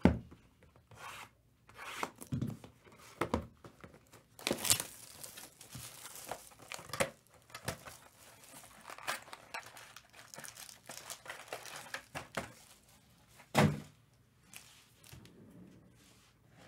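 Plastic shrink wrap being torn and crinkled off a sealed Panini Select UFC trading-card box, with the cardboard and packs handled in irregular crackles and rustles. A few sharp knocks of the box and packs set down on the table, the loudest late on.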